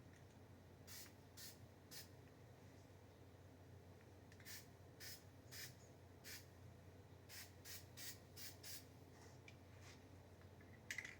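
Faint short bursts of spray paint hissing, about a dozen quick sprays in irregular groups with pauses between, as paint is laid on a mower deck.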